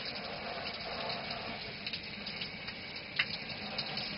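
Shower running: a steady spray of water from the shower head.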